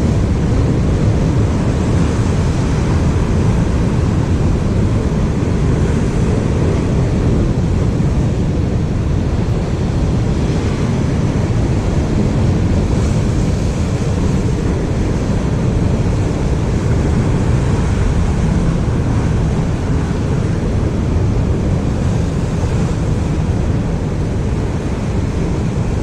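Steady wind buffeting the microphone over the rush of surf on a rough sea.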